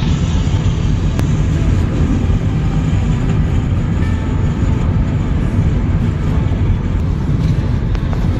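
Loud, steady rumble of a moving vehicle, heaviest in the low end, with a few faint clicks over it.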